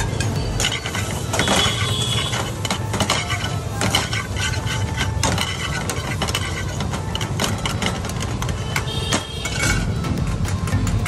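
A metal slotted spatula scraping and clinking against an aluminium frying pan as an egg, onion and chilli omelette mixture is stirred and spread. There are frequent sharp clicks throughout, over a steady low hum.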